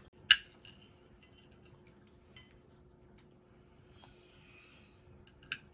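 Tableware at a meal: one sharp clink of a spoon against a dish, then a few faint light clinks.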